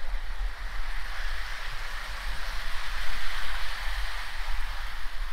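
Hornby Live Steam OO gauge A4 locomotive running on its own steam, giving a steady hiss that swells around the middle as it passes close, over a low rumble.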